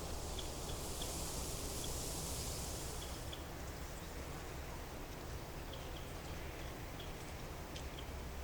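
Calm outdoor mountain ambience: short faint chirps or ticks scattered throughout over a steady low rumble, with a rustling hiss that swells in the first few seconds and fades.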